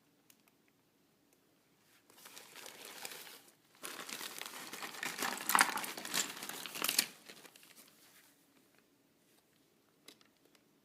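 Packaging being crinkled and handled, starting about two seconds in, loudest and densest from about four to seven seconds in, then fading; a couple of faint clicks near the end.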